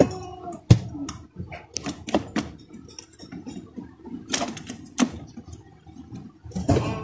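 Hard clicks and knocks from handling a portable speaker's control panel and plastic cabinet as the panel is fitted back in: several sharp taps, the loudest about three-quarters of a second in and two more around four and five seconds in. Background music with singing comes in near the end.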